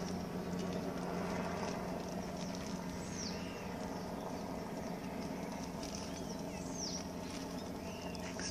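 Rural outdoor ambience: a bird gives a short high whistle sliding downward twice, about four seconds apart, with softer arched notes between, over a steady low hum. Light rustling and ticking of plastic wrap and twine being tied around a branch.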